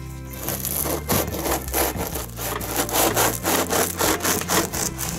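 Serrated bread knife sawing back and forth through the crisp, crackling crust of a ciabatta loaf on a wooden board, in a quick series of rasping strokes that start about half a second in.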